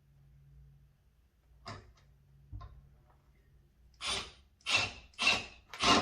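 A wood screw being driven back into a hinge screw hole packed with toothpicks: a couple of faint clicks, then, about four seconds in, a run of short rasping strokes about every 0.6 s that grow louder as the screw bites into the wood.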